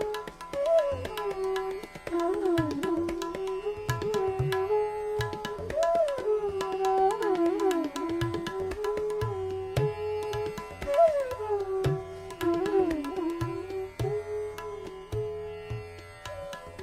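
Hindustani classical music: a bansuri bamboo flute playing raga Bhopali, with gliding, ornamented phrases over a held drone, accompanied by tabla strokes.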